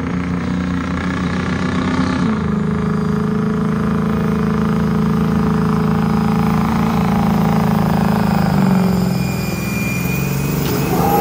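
Ford F-250 diesel pickup engine pulling a weight-transfer sled at full throttle, running hard and steady, with its pitch sagging slightly twice as the sled bears down.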